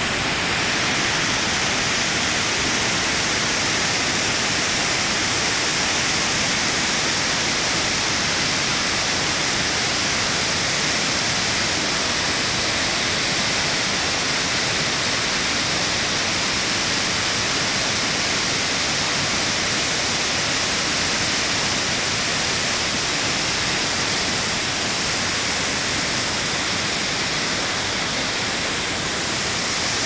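Sekinoo Falls, a wide waterfall pouring in several streams into a plunge pool, with rapids over boulders below it: a steady, unbroken rush and hiss of falling water.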